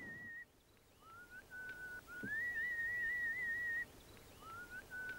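A person whistling a slow tune: long held notes, each sliding up into its pitch, with short pauses between them.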